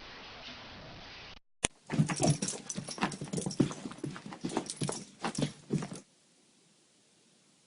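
An animal, most likely a dog, making a quick, irregular run of short sharp sounds for about four seconds, after a brief steady hiss, and then near silence.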